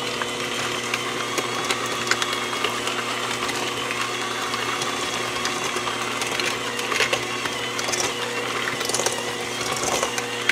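Electric hand mixer running steadily, its beaters churning a thick, heavy batter in a stainless steel bowl, with scattered clicks throughout.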